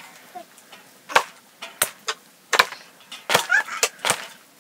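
Knife chopping pieces of pork on a chopping block: about six sharp strikes at uneven intervals.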